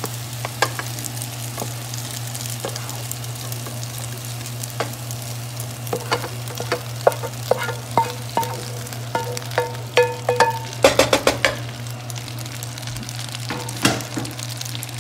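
Cabbage, onion and bacon sizzling in a frying pan while a wooden spoon scrapes the mixture out and knocks against the rims of the metal pans. A run of sharp knocks, some leaving a short ringing tone, comes from about six to eleven seconds in, ending in a quick flurry.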